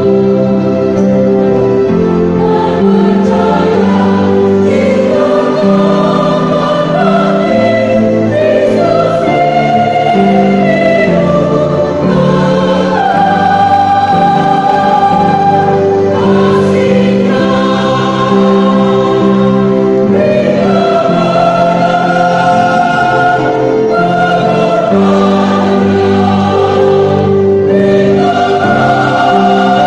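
Church choir singing, with long held notes that shift every second or two and no pause.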